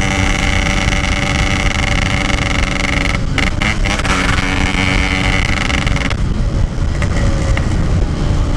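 Yamaha RX-King 135 cc single-cylinder two-stroke running at a steady speed on the road, through a stock-style aftermarket exhaust, with wind rumble on the microphone. There is a short dip a little after three seconds, and about six seconds in the engine note eases as the throttle comes off.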